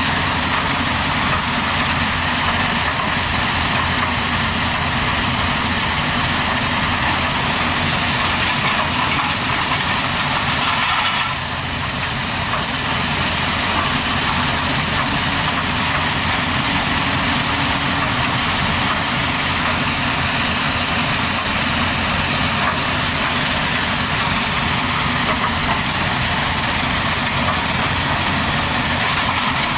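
Diesel engine of a backhoe or excavator running steadily, with a brief drop in level about 11 seconds in.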